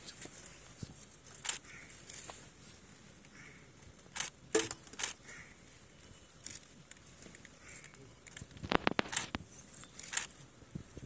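Footsteps and boot strikes on a paved parade ground: scattered sharp knocks, with a quick cluster of them about nine seconds in.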